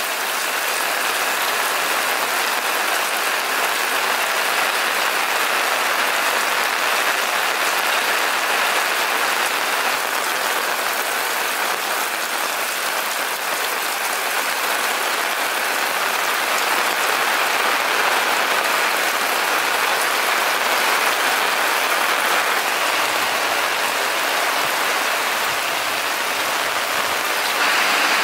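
Rain falling steadily, an even hiss that gets a little louder near the end.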